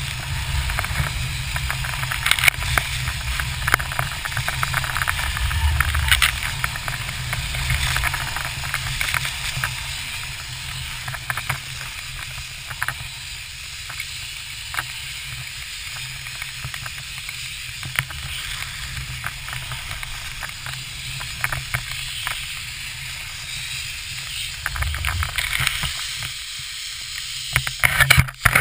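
Skis scraping and hissing over snow on a downhill run, with wind rumbling on the microphone and scattered clicks and crunches. It is louder at first, eases off in the middle, and a few sharp knocks come near the end.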